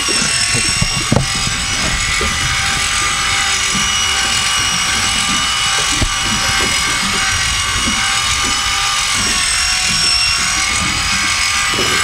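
Electric drill coupled to a sea-fishing reel, running steadily with a constant high whine as it winds the line in from deep water with a fish on.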